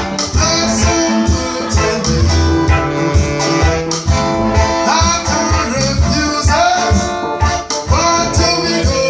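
Reggae band playing live, with a prominent bass line, guitar and a voice singing.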